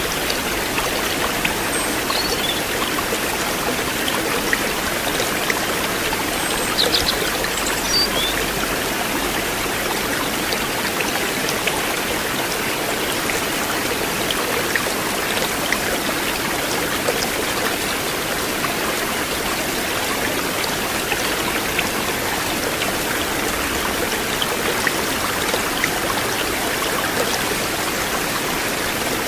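River water flowing in a steady, even rush with small splashes and trickles.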